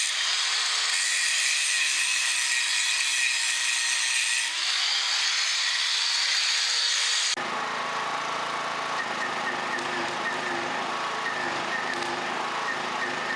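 Arc welding: a steady crackling hiss with a slowly wavering whine. About seven seconds in it changes abruptly to a lower, buzzing crackle with a steady hum.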